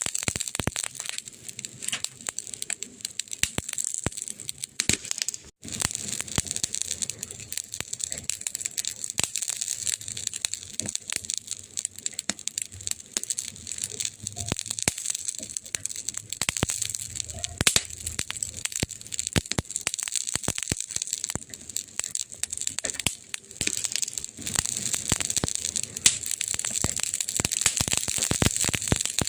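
Burning wood in a fire crackling: a dense, irregular run of small pops and snaps over a steady hiss, with a brief dropout about five seconds in.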